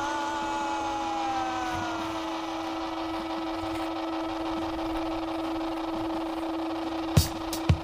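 Background music: one long held note with higher tones fading out over the first couple of seconds, then drum hits coming in near the end.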